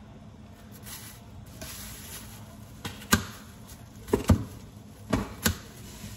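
Kitchen handling noise at the stove: a brief hiss, then a few sharp knocks and clacks of a seasoning container and cookware being handled, loudest in a cluster a little past four seconds in.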